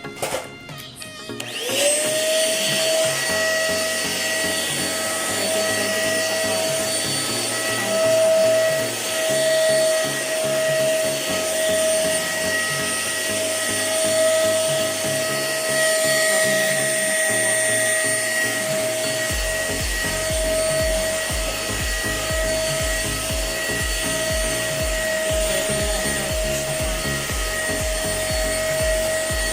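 DEERMA DX700 handheld vacuum cleaner switching on about two seconds in, its motor spinning up quickly to a steady high whine with a rush of suction, running as it is used on carpet. A low, even pulsing joins about two-thirds of the way through.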